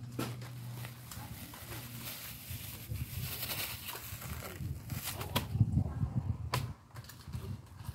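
Rustling and crinkling of a small plastic bag of salt being handled and opened, with a few sharp clicks and a low rumble, loudest about two-thirds of the way through.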